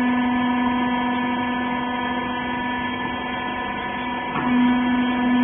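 Hydraulic press baler's electric pump motor running with a steady hum. About four seconds in there is a faint click and the hum grows slightly louder.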